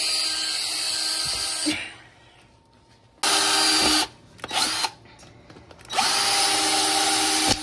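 Cordless drill running in three steady bursts as it drills holes into a white plastic container: one near the start, a short one in the middle and one near the end.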